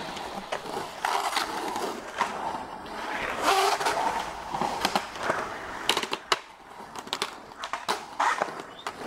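Skateboard wheels rolling and carving on a concrete bowl, the rolling noise swelling and fading as the board moves, with several sharp clacks of the board and trucks striking the concrete.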